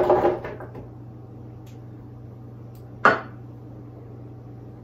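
Frozen cherries tipped from a small glass bowl into a blender jar, clattering briefly onto frozen banana chunks. About three seconds in, a single sharp knock as the bowl is set down on the counter, over a steady low hum.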